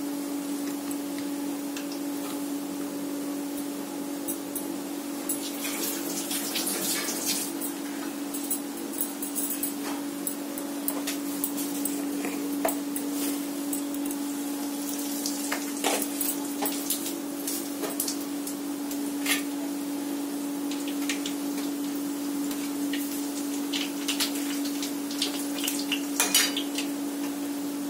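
A metal spoon mixing thick gram-flour batter in a bowl, with scattered clicks and scrapes against the bowl, over a steady low hum.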